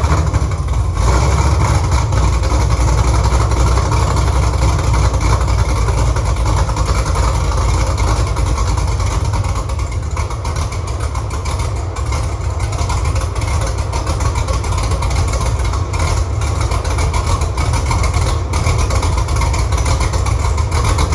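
Newly swapped 6.2-litre LS V8 in a 1968 Camaro running steadily at about idle through its headers. The engine is freshly started and still learning its fuel tune, so it is running fairly rich.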